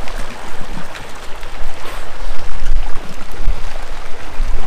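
Wind buffeting the microphone in gusts over choppy water lapping around a small boat's hull.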